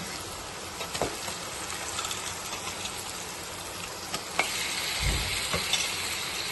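Raw chicken pieces sizzling as they go into a pan of hot oil with fried onions and spices, with a few clicks and a soft thud about five seconds in. The sizzle grows stronger after about four seconds.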